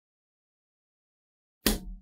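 Silence, then near the end a short, sudden sound effect that starts loud and dies away within about half a second.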